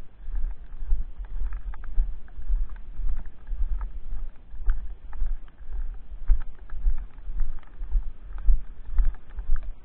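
Footsteps in snow at a steady walking pace, about two steps a second, each step a low thud with crunching clicks.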